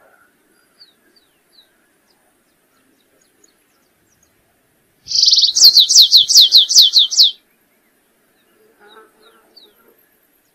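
A canário-rasteiro (stripe-tailed yellow finch) sings one song phrase about five seconds in. It opens with a short buzzy note and runs into a quick trill of about ten down-slurred notes, lasting about two seconds. A few faint high chips come before and after.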